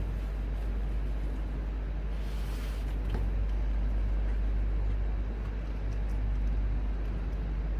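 Tow truck engine running steadily with a low rumble, with a brief hiss about two and a half seconds in.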